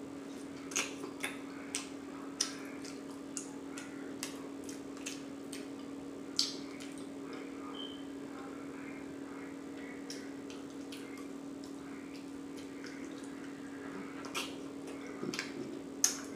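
Close-miked chewing: wet mouth smacks and clicks at irregular moments, one or two a second, over a steady low hum.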